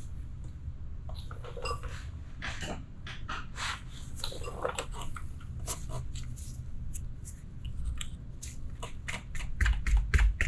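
Hand tools clicking and scraping on metal timing-gear parts of an engine: a string of irregular small clicks and scrapes over a low steady hum, with a few heavier low knocks near the end.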